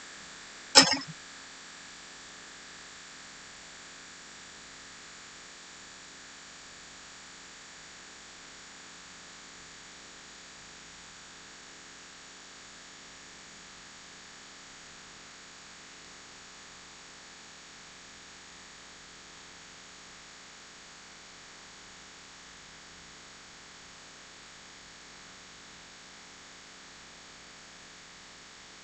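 One sharp click just under a second in, then a steady faint hiss with a low hum.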